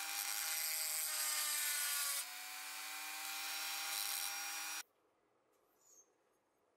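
Handheld rotary tool with an abrasive wheel grinding a die-cast zinc-alloy toy car body: a steady motor whine under a harsh grinding hiss. It dips slightly in pitch and level about two seconds in, as the wheel bears down, then stops suddenly about five seconds in.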